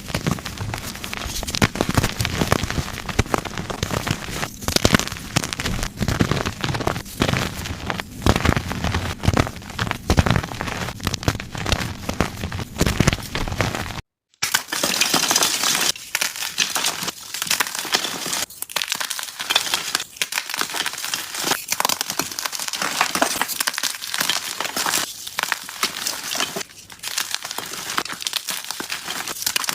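Dyed gym chalk blocks being crushed and crumbled, a dense run of crackling, crunching breaks. It cuts out briefly about halfway through, then resumes crisper and higher-pitched.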